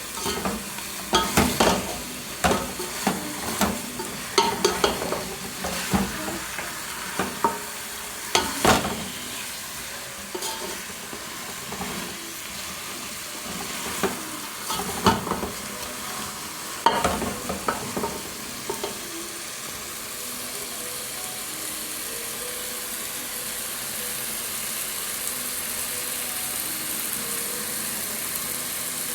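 A spoon stirring chicken in a thick tomato sauce in a cooking pot, knocking and scraping against the pot over a sizzle. The knocks stop about two-thirds of the way through, leaving a steady sizzle.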